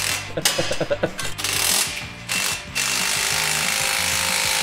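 Cordless power tool driving a fastener on the exhaust under the Ford Bronco. It runs in a few short bursts, then steadily for about three seconds before stopping near the end.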